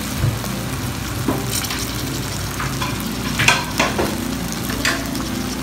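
Sauced chicken and vegetables sizzling in a nonstick wok, with a spatula stirring and scraping against the pan several times.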